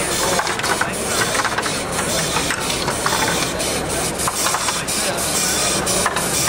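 Model horizontal mill engine running, its valve gear and rods making a quick, uneven clicking and ticking over the background chatter of a crowd.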